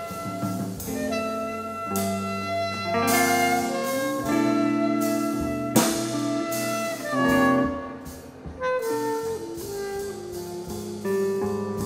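A band playing an instrumental break in a song: held chords and a melody line, the notes changing every second or so, with a sharp hit about six seconds in.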